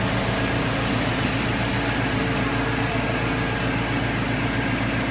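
Steady mechanical hum with a few held tones from a Doosan PUMA 240MB CNC turning center running a dry cycle, over an air compressor running in the background.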